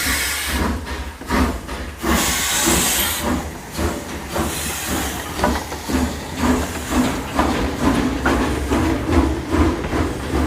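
Steam locomotive running, with a steady low rumble and a run of short repeated chuffs. A loud burst of steam hiss comes about two seconds in, and a shorter one a little later.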